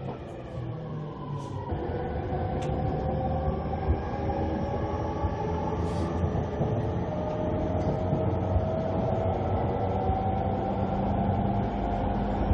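Running sound inside a JR E231-500 series electric train: the Mitsubishi IGBT-VVVF inverter and traction motors whine in several tones over a steady wheel-and-rail rumble. The tones change abruptly about two seconds in, then hold nearly steady.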